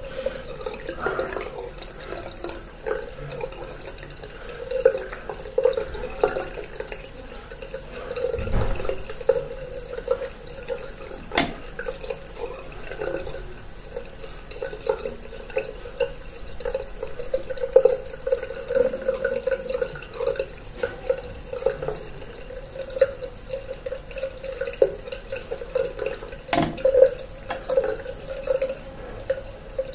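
Water running from a tap into a sink, with splashing and dripping, during a wet shave. Two sharp knocks, about eleven seconds in and near the end.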